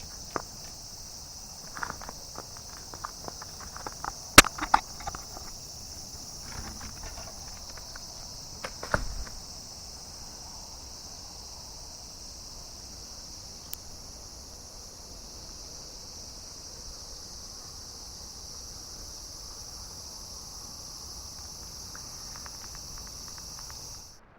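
Steady, high-pitched chorus of late-summer insects that cuts off suddenly just before the end. Over the first several seconds come footsteps and scattered clicks, the loudest a sharp click about four seconds in and a low thump about nine seconds in.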